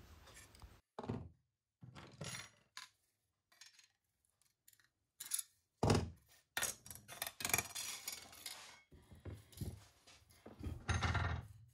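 Hand tin snips cutting a small segment out of a thin stainless-steel sheet cover, heard as a few sharp snips and clicks. From about halfway through comes a busier run of metallic knocks and scrapes as the cut piece and tools are handled at a bench vise.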